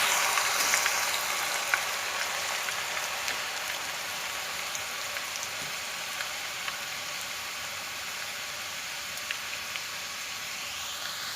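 Grated potato shreds deep-frying in hot oil in a kadhai: a dense sizzle with scattered small pops. It fades over the first few seconds, then holds steady.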